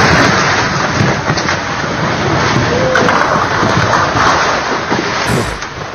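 A concrete house collapsing: a loud, continuous rumbling crash of falling masonry and debris that tails off near the end.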